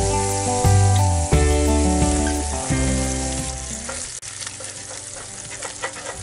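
Bacon sizzling and frying in cast iron skillets, with background music carrying low, stepping notes over it for the first half before fading out. From about halfway a wooden spatula moves the bacon, scraping and clicking against the pan.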